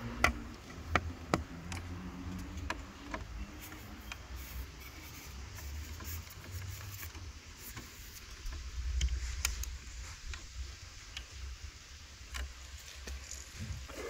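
Scattered sharp clicks and taps of a screwdriver prying at the plastic side-mirror housing and turn-signal lens of a Toyota Prius, clustered in the first few seconds and again near the end, over a low steady rumble.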